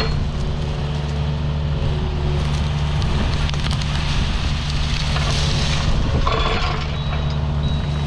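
Excavator diesel engine running steadily under load while its rake pushes and crushes brush and small trees, with branches crackling and snapping; a brief scraping noise comes about six seconds in.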